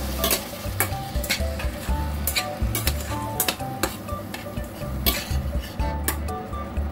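A metal fork stirring and scraping through krecek in chili sauce in a stainless steel frying pan, with repeated sharp clicks of the tines against the pan over a low sizzle.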